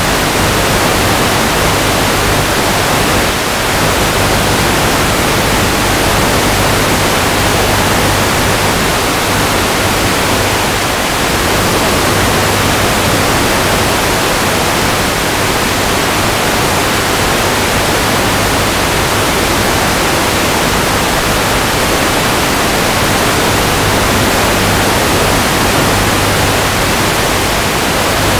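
Loud, steady hiss of radio static from an analog FPV video receiver's audio channel, with a faint low hum underneath.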